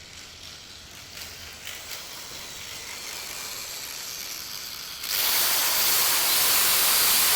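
A hissing sound from the torturer's tool in the audio play, with a few faint clicks. It grows slowly, then jumps suddenly much louder and brighter about five seconds in.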